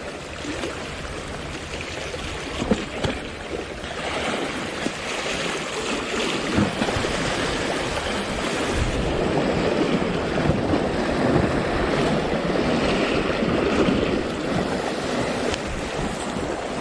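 Sea waves washing and breaking on the shore in strong wind: a steady rushing that swells for several seconds in the middle.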